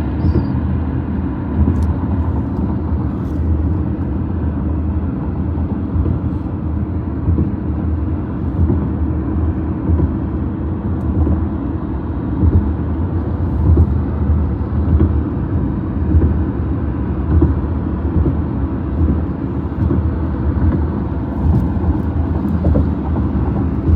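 Highway bridge humming and rumbling under passing traffic. A steady low drone with faint held tones swells a little as vehicles cross.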